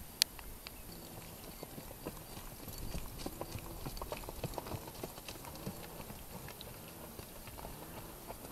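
A horse's hoofbeats on dry grassy ground as it is ridden past at a brisk gait, with one sharp click just after the start.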